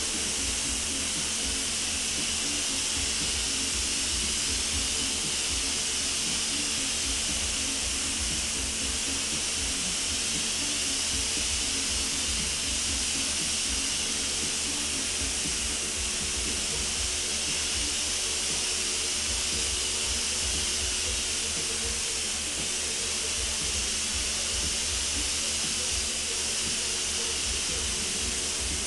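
Paint spray gun hissing steadily without a break as it sprays a coat of clear over a car body panel.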